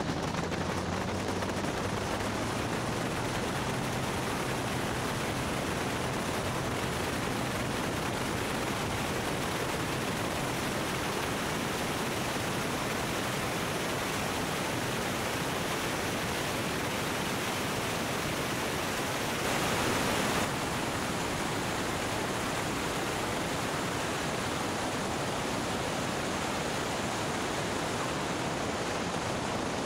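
Steady rush of wind on the microphone of a camera mounted under a Cessna 205 as it accelerates along the runway, with the engine's drone faint beneath and rising slightly in pitch in the first few seconds. The noise swells louder for about a second roughly two-thirds of the way through.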